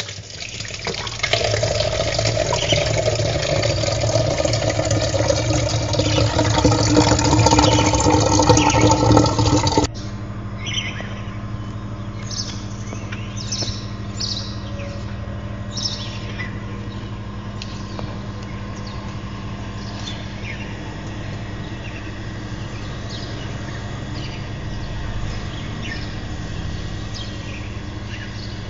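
For about the first ten seconds, a loud, dense sound that cuts off abruptly. After that, birds chirp in many short calls over a steady low hum.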